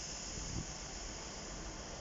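Class 158 diesel multiple unit standing at the platform, its engine idling low under a steady high hiss.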